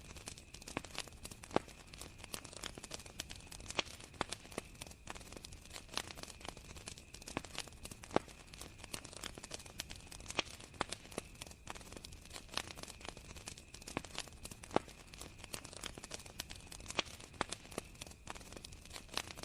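Campfire burning wood, crackling with irregular sharp pops and snaps, several a second, over the steady high chirring of crickets.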